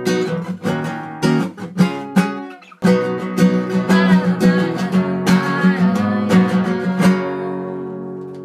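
Background music of a strummed acoustic guitar, with a brief break about a third of the way in. Near the end a last chord rings out and fades.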